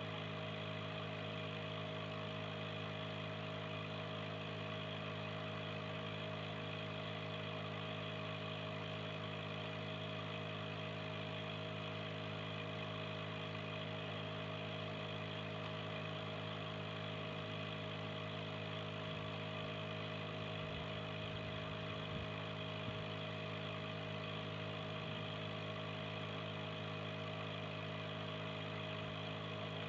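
Aquarium air pump humming steadily, with the air stone's stream of bubbles fizzing in the water.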